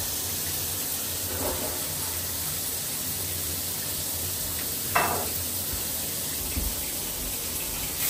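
A 12-inch rain shower head running, its many fine streams of water making a steady, even hiss in the shower. About five seconds in there is one brief knock.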